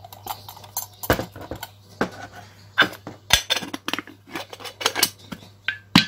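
Irregular metallic clinks and knocks of a spray gun's metal paint cup being handled and fitted onto the gun body, with a brief ringing note from the cup near the end.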